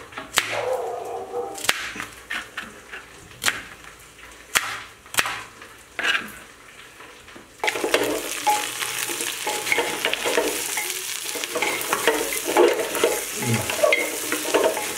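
A knife chopping onion on a cutting board, with irregular sharp taps. About halfway through this gives way to goat meat sizzling as it fries in an open pressure cooker, stirred and scraped with a wooden spatula.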